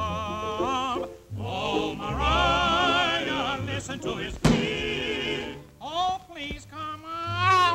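Cartoon soundtrack song: several voices singing together with heavy vibrato over a band accompaniment, with a sharp thump about four and a half seconds in.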